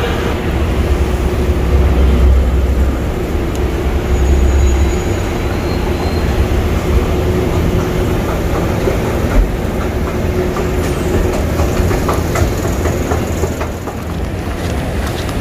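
Escalator running: a steady mechanical rumble and hum from its moving steps, with rattling clicks in the second half.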